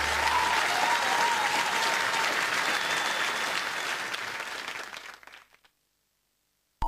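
Studio audience applauding after a live song, the applause fading out about five seconds in; a second or so of silence, then music cuts in at the very end.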